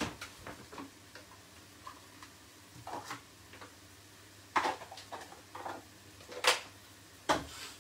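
A few scattered sharp clicks and knocks of kitchenware being handled, the loudest about six and a half seconds in.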